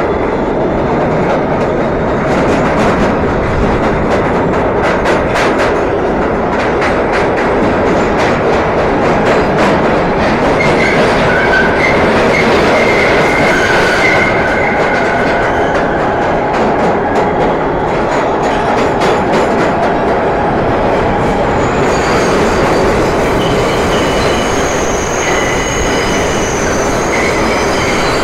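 New York City subway R160B train with Siemens propulsion running on the rails: a steady loud rumble with a run of sharp clicks over rail joints early on, then high-pitched wheel squeal about ten seconds in and again in the last few seconds.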